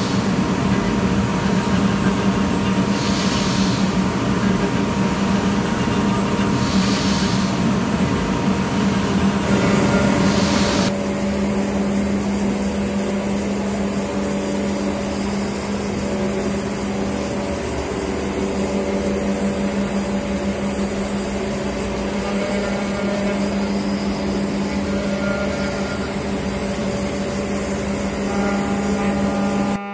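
Five-axis CNC router spindle running steadily while its cutter mills a workpiece: a steady machine hum with a hiss that swells about every three to four seconds. The sound changes abruptly about eleven seconds in, to a steadier whine as the cutter carves wood.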